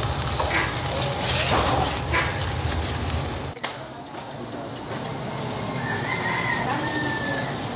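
Tomahawk steaks sizzling on a charcoal grill grate, a steady hiss. A low rumble under it stops suddenly about three and a half seconds in.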